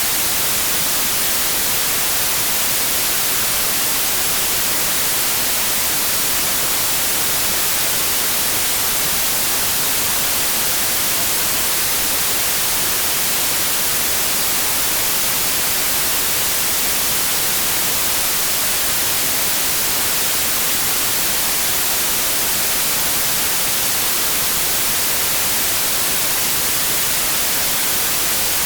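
Steady white noise: an even, unbroken hiss, brightest in the treble, at a constant level.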